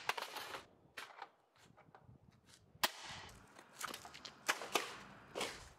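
Mr. Heater Portable Buddy propane heater thrown onto an asphalt driveway, clattering and tumbling across it in a series of sharp knocks: at the start, about a second in, near three seconds, and several in quick succession near the end.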